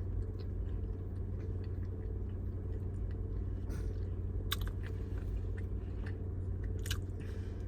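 A person chewing food with a few short, sharp mouth clicks, over a steady low hum.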